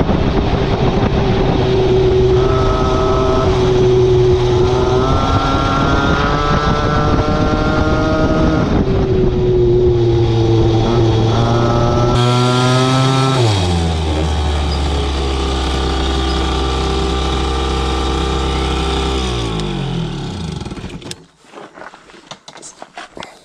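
A 50cc two-stroke moped engine running under way, its pitch rising and falling with the throttle. About halfway through it drops to a lower steady note as the moped slows, then sinks further and stops about 21 seconds in, leaving a few faint knocks.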